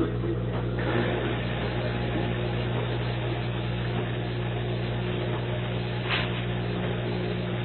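Viking Professional 301 dishwasher running: a steady motor hum under a rushing wash of water, with a brief higher swish about six seconds in. The owner measures it at 65 dB and takes it for abnormally loud for a new machine, though Viking calls it normal.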